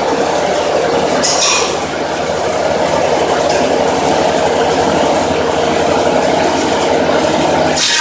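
Log-rounding machine running, its cutter milling a log, with a steady low hum and a brief hiss about a second and a half in. The sound changes abruptly just before the end.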